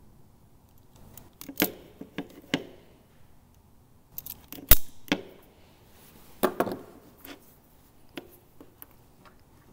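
Hand wire strippers clicking and snipping as insulation is pulled off the ends of 10-gauge wires: a series of sharp clicks, the loudest about halfway through.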